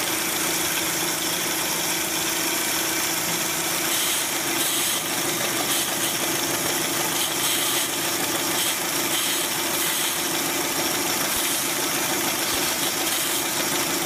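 Car engine idling with a single-cylinder misfire, with the intermittent hiss of water being sprayed onto the number one intake runner. The idle roughens as the water is drawn into the intake, which confirms a vacuum leak at that runner.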